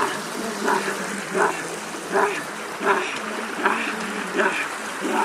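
Watery splashing or lapping sounds in an even rhythm, about one every three-quarters of a second, over a steady low hum.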